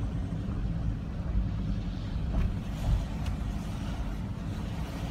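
Inside a car's cabin while driving slowly on wet pavement: a steady low rumble of engine and road noise, with a few faint ticks around the middle.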